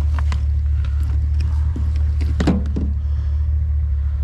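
Steady low hum of an idling vehicle engine, with light clicks and knocks from items being handled and one louder short knock about two and a half seconds in.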